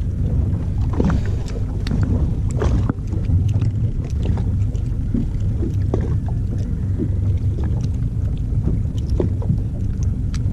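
Steady low rumble of a small boat on open water, with scattered small clicks and knocks from the rod, reel and line as a small reef fish is brought up and held on the hook.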